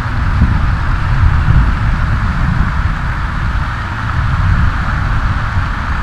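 Steady outdoor background noise: a low, unsteady rumble with a hiss above it, and no distinct event.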